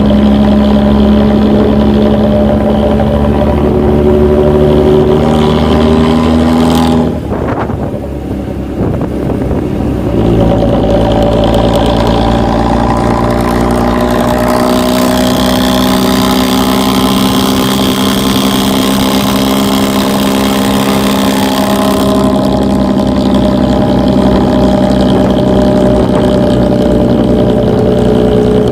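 Diesel bus engine running through a loud exhaust with a deep snoring growl, its pitch rising and easing a little as it revs. The sound drops away briefly about seven seconds in and then comes back, and a hiss rides over it for several seconds in the middle.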